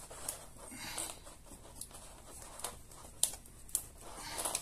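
Handling noise from working on a laptop LCD panel: about five sharp light clicks over soft scraping and rustling.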